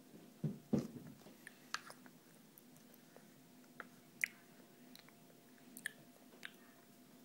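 A baby eating soft food off a plastic spoon: scattered wet mouth smacks and sharp little clicks, the loudest about a second in.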